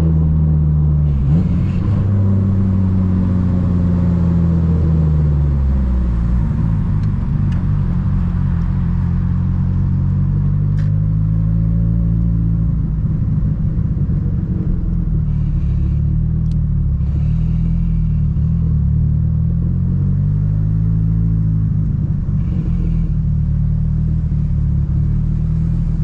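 Mitsubishi Lancer Evolution VIII's turbocharged four-cylinder engine heard from inside the cabin while driving at low revs, its pitch falling and rising as the throttle changes.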